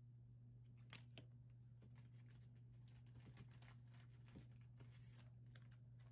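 Faint crinkling and rustling of trading-card packaging and plastic card sleeves being handled, with a scatter of small clicks, over a steady low hum.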